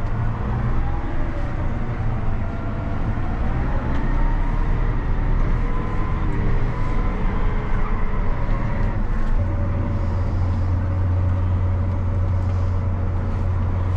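John Deere 7R tractor's diesel engine running under way, heard from inside the cab. A deeper, stronger drone comes in about two-thirds of the way through and holds.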